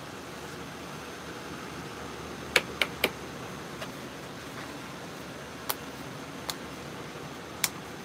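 Steady fan hum under a few sharp clicks and taps: a measuring spoon knocking against a paper bag of dry fertilizer amendment as a spoonful is scooped out and the bag is handled. The clicks come as a quick run of three about two and a half seconds in, then singly every second or so.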